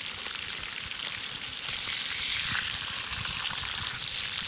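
Whole trout frying in hot oil in a wide steel pan, a steady sizzle that grows louder about two seconds in as a fish is turned over.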